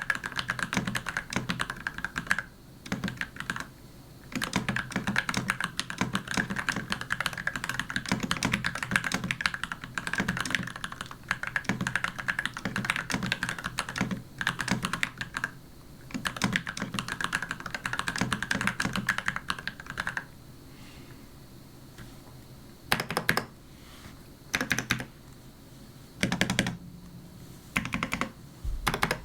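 Custom mechanical keyboard with a wooden case and C3 Tangerine linear switches being typed on: fast continuous keystrokes for most of the first two-thirds, then short separate bursts of a few keystrokes.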